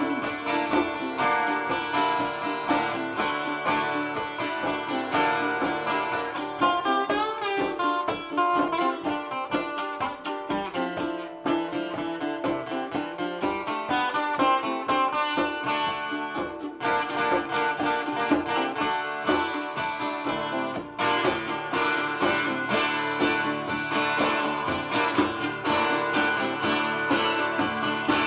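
Live acoustic band playing an instrumental passage with no vocals: an acoustic guitar and a small stringed instrument picked and strummed over a hand drum.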